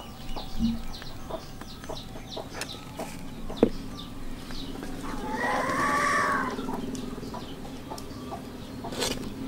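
Chickens in the background, with a rooster crowing once about five seconds in, a call that rises and falls over about a second and a half. A few light clicks of a spoon against a stainless steel tray.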